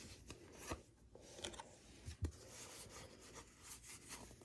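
Faint rubbing and light clicks of trading cards being slid one behind another as a booster pack is flipped through, with a soft knock about two seconds in.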